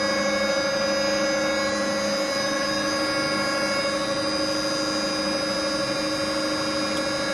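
2000-litre horizontal ribbon blender running at full speed, its main drive and two chopper motors on inverter speed control: a steady machine hum with several constant whining tones. It runs stable, with no change in pitch or level.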